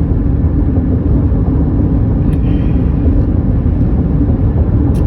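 Steady low rumble of road and engine noise inside a moving car, with a couple of faint light ticks.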